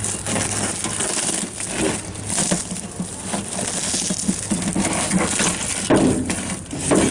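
Shattered laminated car windshield crunching and crackling as it is pried and peeled back from the car with a pry bar, with a scatter of small glass chips clinking. The loudest crunches come about six and seven seconds in.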